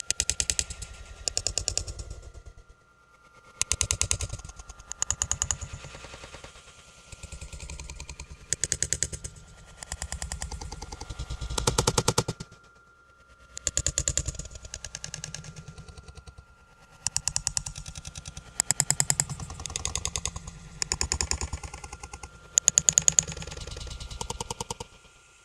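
Rapid rattling clatter in repeated bursts of fast clicks, some loud and some softer, with a few short pauses, over a faint steady high tone.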